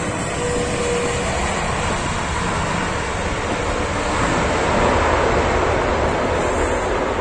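Airbus A330-941 (A330neo) airliner's Rolls-Royce Trent 7000 jet engines roaring as it rolls out along the runway just after landing, a steady rushing roar that swells about four to five seconds in.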